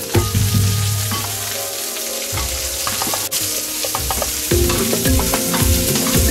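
Sliced onions sizzling in hot oil in a frying pan as they are stirred, with the occasional scrape and tap of the utensil against the pan.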